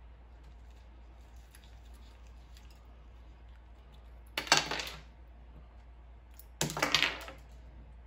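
Ice clinking and sliding on top of an upturned glass flask, in two short clattering bursts about two seconds apart, over a low steady hum.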